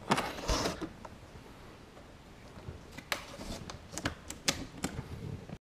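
Scattered sharp clicks and knocks of hands working wiring and plastic parts inside a car dashboard's radio slot, with a rustle of cables at the start. The sound cuts off abruptly near the end.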